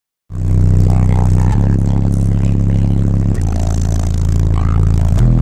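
Bass-heavy music played loud through two 15-inch Sundown ZV4 subwoofers wired to 0.5 ohm on a Crescendo 2000 amplifier, heard inside the car's cabin. It starts suddenly a moment in, with deep sustained bass notes that change pitch every couple of seconds.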